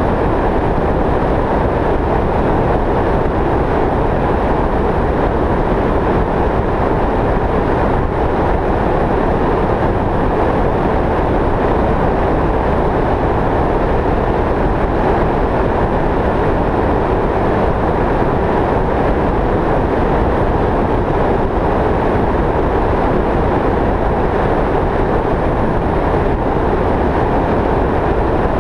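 Steady road and wind noise of a vehicle driving along a highway. It is an even noise, strongest in the low and middle range, and holds the same level throughout.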